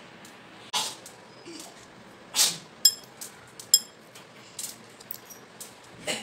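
Hands kneading and pressing semolina dough on a glass tabletop: soft slaps and rubbing, with a few short, ringing clinks in between.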